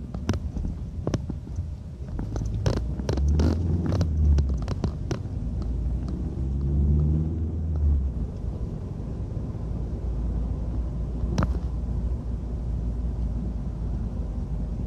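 Handling noise from a phone with its microphone covered: a muffled low rumbling and rubbing, with a run of sharp knocks in the first five seconds and one more knock about eleven seconds in.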